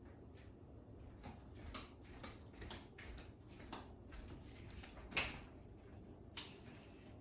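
Scattered light clicks and taps of things being handled, about a dozen, with one louder knock about five seconds in.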